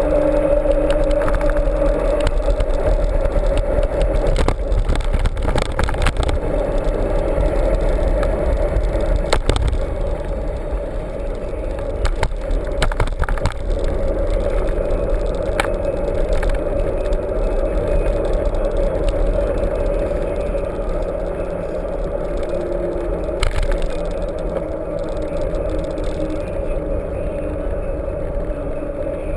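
Mountain bike being ridden over rough ground: a steady rumble with frequent rattles and knocks from the bike.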